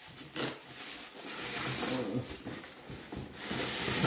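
Plastic wrapping rustling and styrofoam packing rubbing as a packed machine is pulled up out of a wooden crate, in uneven surges with two louder stretches.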